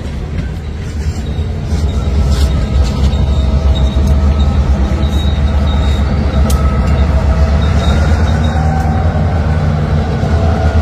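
A freight train rolling over a level crossing, its cars giving way to two EMD GP38-series diesel-electric locomotives whose engines rumble loudly as they pass. The low rumble grows about two seconds in and stays strong.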